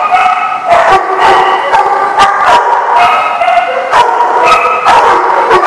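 Several dogs barking and yipping over one another without a break. Held, higher-pitched calls at several different pitches run between the barks.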